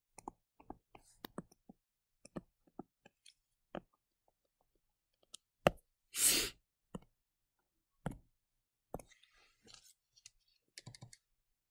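Scattered light clicks and taps of a stylus on a tablet screen while writing and picking a pen colour, with a sharp click and a short breathy hiss about six seconds in.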